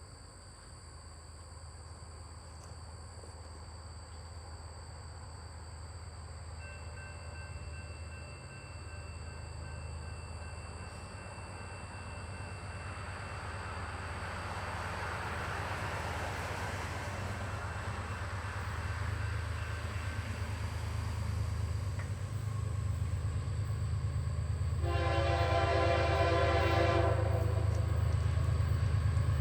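Diesel freight locomotive approaching slowly, its engine rumble growing steadily louder. About 25 seconds in it sounds its multi-note air horn in one blast of about two seconds.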